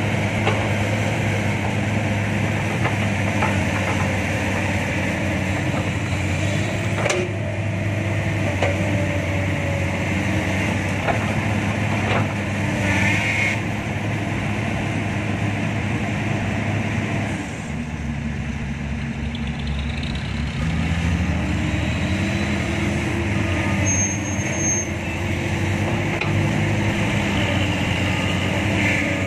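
Excavator's diesel engine running close at hand. Its note drops about two-thirds of the way through, then climbs again.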